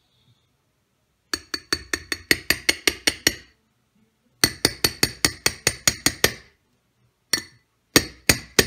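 Metal mesh strainer knocked repeatedly against the rim of a bowl to shake out clinging boiled flaxseeds and gel: sharp clinks in two quick runs of about five a second, then a few single knocks near the end.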